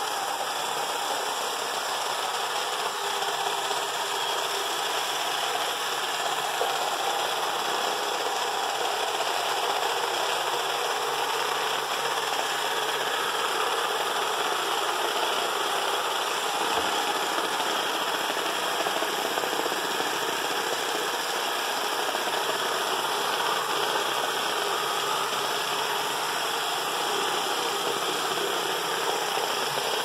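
iRobot Roomba Discovery 4210 robotic vacuum cleaner running on a laminate floor: a steady whir from its vacuum fan, brush motors and spinning brushes.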